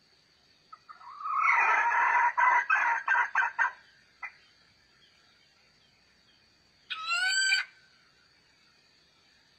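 Rooster crowing: a long, harsh crow about a second in that breaks into quick pulses at its end, then a shorter, clearer call with a rise and fall in pitch about seven seconds in.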